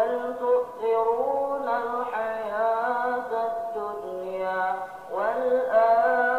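A man's voice chanting in Arabic in the melodic style of prayer recitation: long held notes that glide between pitches, with a short breath about five seconds in.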